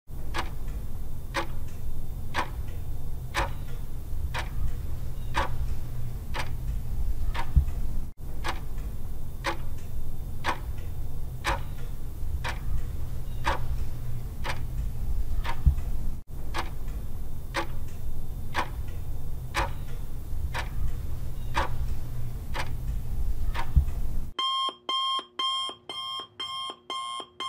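Countdown-timer sound effect: a clock ticking steadily, about one and a half ticks a second over a low rumble. The ticking stops near the end and a rapid alarm beeping, about three beeps a second, takes over as the time runs out.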